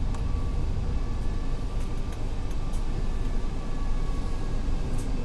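Steady rumble of airflow and aircraft systems inside an Airbus A380 flight deck during the approach, with a faint high whine held steady throughout.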